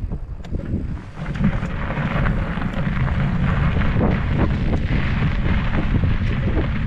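Mountain bike riding along a dry, sandy dirt singletrack: tyres crunching over the grit and the bike rattling with small clicks over bumps, under heavy wind rumble on the microphone.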